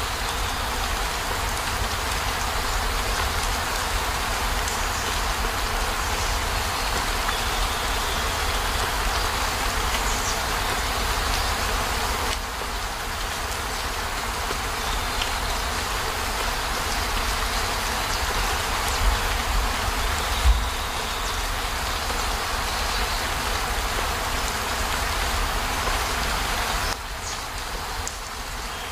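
Steady heavy rain pattering on a campervan's roof and windows, an even hiss with a low rumble underneath, dropping slightly in level near the end.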